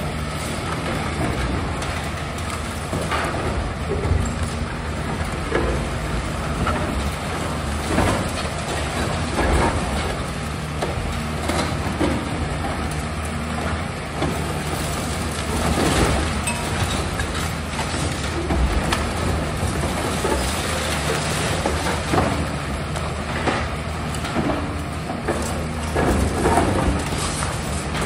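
Tracked demolition excavator's diesel engine running steadily while its demolition jaw tears into the building's concrete frame. Irregular cracks and crashes of breaking concrete and falling debris come every few seconds over the engine.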